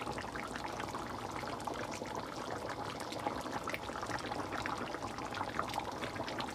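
Pot of goat meat and tomatoes in a thin yogurt-water gravy bubbling steadily on the boil, with many small pops and crackles.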